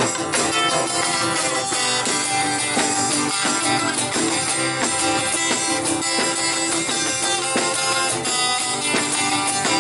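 Two acoustic guitars strumming together in a steady rhythm, with a tambourine struck along, in an instrumental break without singing.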